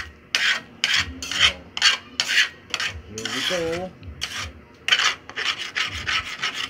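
Metal spatula scraping across the bottom of a stainless steel frying pan while stirring thick corned beef and egg, in quick repeated rasping strokes, two to three a second, pausing briefly just before the five-second mark.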